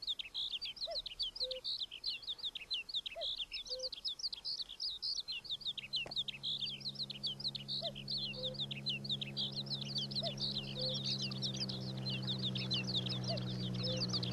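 Birdsong ambience: dense high chirping from many small birds, with a lower two-note call, high then dropping, repeating every few seconds. From about five seconds in, the steady low drone of a Class 47 diesel locomotive's engine fades in under the birds and grows gradually louder.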